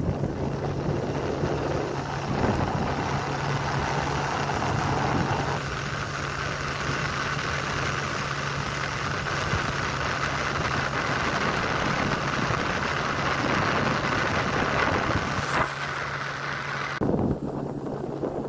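Motorboat's outboard motor running steadily under way, a constant low hum with a hiss of water and air over it.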